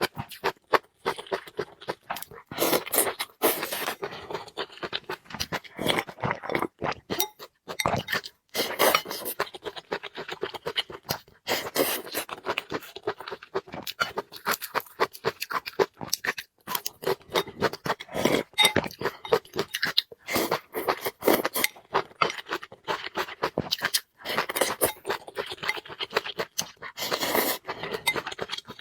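Close-miked eating: irregular chewing and crunching of food, with occasional clinks and scrapes of utensils against a bowl.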